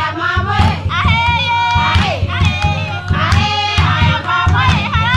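A group of women singing together in high voices, with a drum beating a steady rhythm underneath: a traditional Ethiopian song for dancing.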